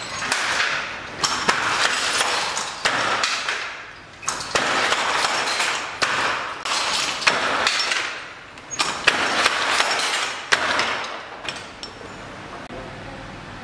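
Hand jacquard loom weaving, rattling and clacking in repeated bursts about every one and a half seconds, with sharp knocks among them. It dies down near the end.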